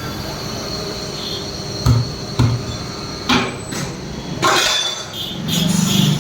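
Tyre-fitting work on a wheel: four sharp knocks of a tool striking, spaced about half a second to a second apart, over a steady machine hum, with a louder sustained machine sound near the end.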